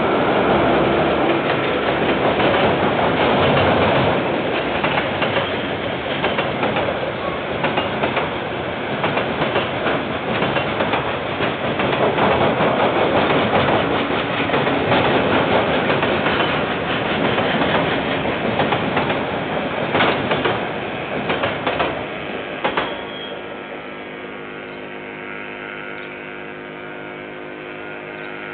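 KiwiRail freight train of container wagons rolling past, a dense steady rumble with many short clicks and knocks. About 23 seconds in the train noise falls away as the last wagons pass, leaving a steady hum. Heard through a security camera's microphone.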